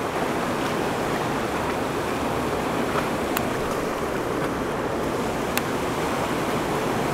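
Fast river current rushing past the rocks, a steady even hiss of moving water, with a couple of faint ticks about halfway through.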